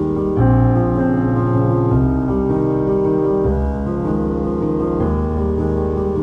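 Background piano music, held chords changing every second or so.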